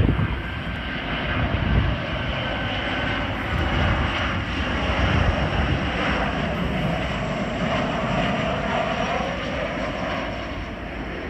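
Boeing 737-700 on final approach passing low, its CFM56-7B turbofan engines running steadily at approach power. An engine whine rides on top of the jet noise and falls slightly in pitch in the second half as the aircraft goes by.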